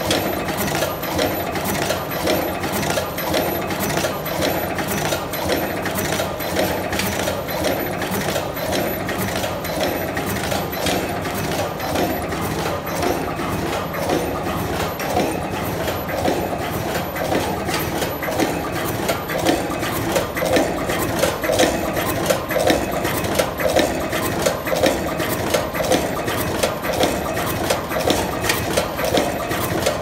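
HR-602 automatic double-end wire crimping machine running in production: its presses, cutters and wire feed make a fast, even rhythm of metallic clacks over steady machine noise.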